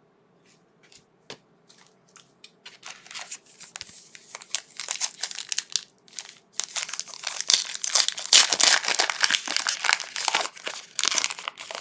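A trading card pack wrapper being torn open and crinkled by hand: a few light clicks at first, then continuous crackling that builds up and is loudest near the end.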